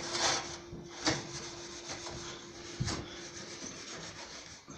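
Hand scrubbing and wiping of an oven surface: a continuous scratchy rubbing with a few harder strokes, over a faint steady hum.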